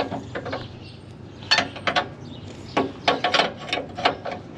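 Hand tools clicking and clinking on the steel of a combine as parts are loosened: a series of irregular sharp metallic taps, with a quicker run of clicks about three seconds in.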